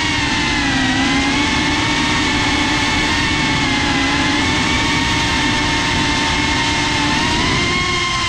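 FPV quadcopter's brushless motors and propellers whining, picked up by the onboard camera, the pitch drifting gently up and down with throttle over a steady rush of prop wash.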